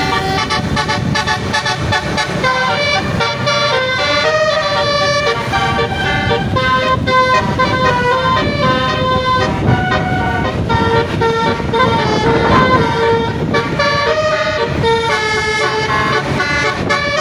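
Bus 'basuri' multi-tone air horn playing a melody, a run of held notes that change pitch every half second or so, over the bus's running noise.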